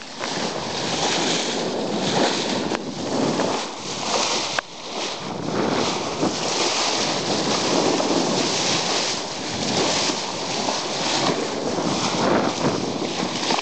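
Sea water rushing and splashing along the bow of a moving boat, with wind buffeting the microphone; a steady, unpitched rush that swells and eases a little.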